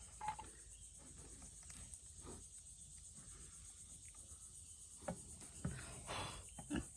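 Steady high-pitched chorus of insects, with a few faint knocks and handling sounds.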